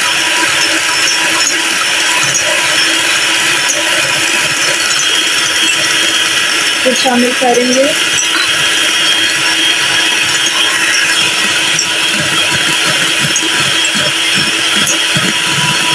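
Electric hand mixer running steadily at speed, its beaters whisking eggs and powdered sugar into a froth in a glass bowl.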